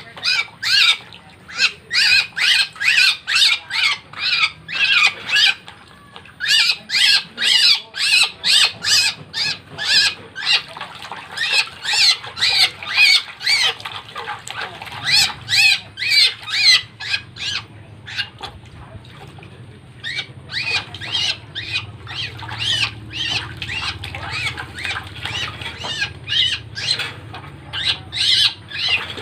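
Birds giving a long run of short, harsh squawking calls, about two to three a second, with a break of a couple of seconds about two-thirds of the way through.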